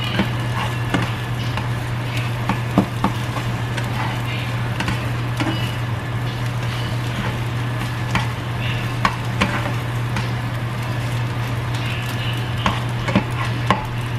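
Eggs sizzling as they fry in a frying pan, with a plastic slotted turner scraping and tapping against the pan in short, irregular clicks as the eggs are broken up and stirred. A steady low hum runs underneath.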